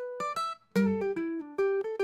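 Background music: an instrumental melody of plucked-string notes, each one struck and ringing out, with a brief gap a little after half a second.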